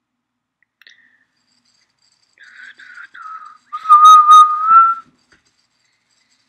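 A person whistling: a few short notes about two and a half seconds in, then one long, loud note held for about a second that rises slightly at its end. Two sharp clicks sound during the long note.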